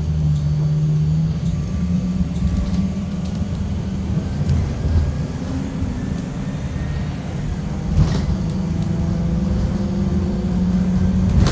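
2018 Blue Bird Vision school bus heard from inside the cabin while driving off: a steady low engine drone with a faint whine that rises as it picks up speed. There is a single knock about eight seconds in.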